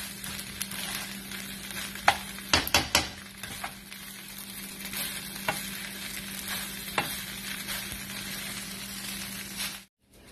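Fried rice sizzling in a nonstick wok while a spatula stirs and tosses it. Scattered taps and scrapes of the spatula against the pan sound over the steady sizzle, with a quick cluster of them about two and a half seconds in. The sound cuts off abruptly near the end.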